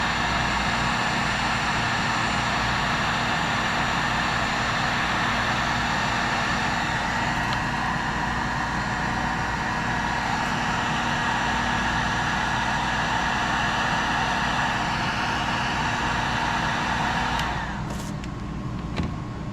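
Electric heat gun blowing hot air in a steady whir and hiss as it heats a solder-seal wire connector to melt the solder ring and shrink the sleeve. It is switched off near the end, and the sound drops away suddenly.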